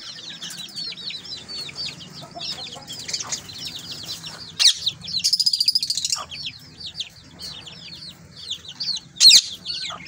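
A brood of chicken chicks peeping continuously, a stream of short falling chirps, with a louder, faster run of peeps about five seconds in. Two brief sharp sounds stand out, a little before that run and again about nine seconds in.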